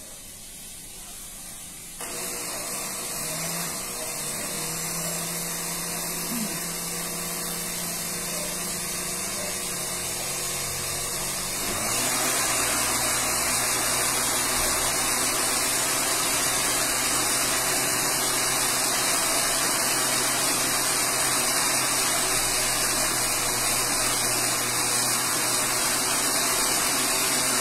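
Countertop blender running with a full jar of milk-based walnut sauce. It starts about two seconds in and steps up to a louder, higher speed about twelve seconds in, then runs steadily.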